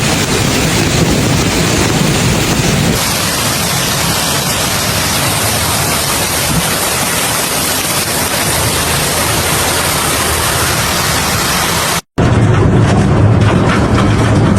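Hailstorm: heavy hail and rain pelting down as a loud, dense, steady hiss. It drops out for an instant near the end and comes back with more low rumble.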